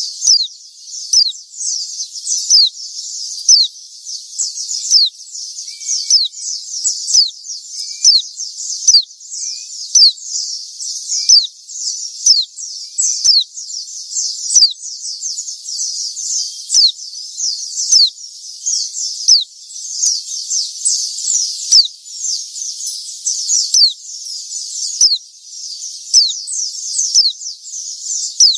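Female white-eye (pleci) calling incessantly: quick, high, downslurred chirps several times a second, over a steady high-pitched hiss, as used in a lure recording for training or trapping birds.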